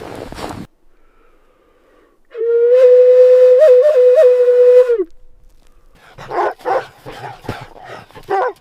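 Wolf howling: one long, loud held note with three brief upward breaks near its end. It is followed by a run of short yips and barks.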